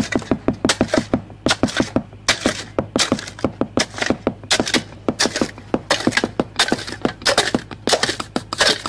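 Pneumatic underground piercing tool (Grundomat mole) hammering through the soil, a rapid run of sharp knocks about seven a second that turns uneven in places, over a steady low hum. The knocking is heard close by, the sign that the mole is about to break through into the exit pit.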